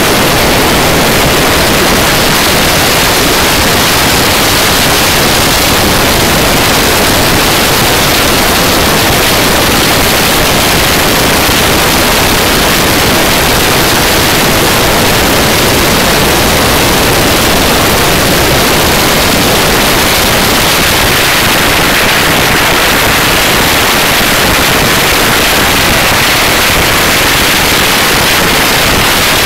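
Loud, steady wind rush on the microphone of a Suzuki GSX-R 750 SRAD sport bike ridden at high speed and high revs, with no clear engine note through it.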